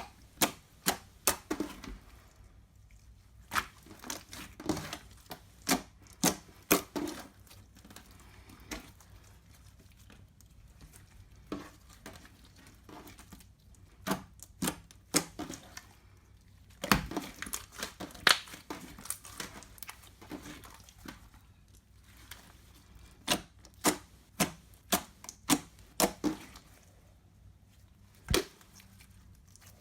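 Clear slime mixed with eyeshadow and makeup being worked by hand, giving irregular runs of sticky pops and clicks with short quieter gaps. The loudest pops come a little past the middle.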